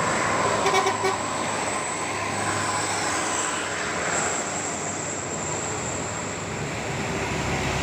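Tour bus passing close as it climbs a bend, its engine and tyres a steady rush of noise, with a brief tonal note about a second in.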